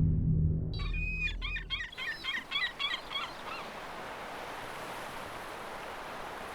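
A bird calling in a rapid series of short, high rising-and-falling cries for about three seconds, over a steady outdoor hiss that carries on after the calls stop. A low sound-effect tone fades out during the first two seconds.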